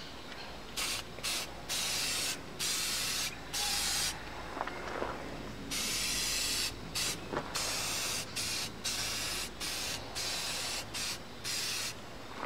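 Aerosol spray paint can hissing in about fifteen short bursts, each under a second, with a pause of nearly two seconds in the middle.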